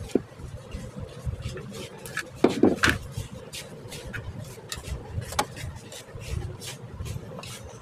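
Scattered small clicks and taps from a wire and plug-in connector being handled and fitted to an LED on a mini IPS controller board, with a louder clatter about two and a half seconds in.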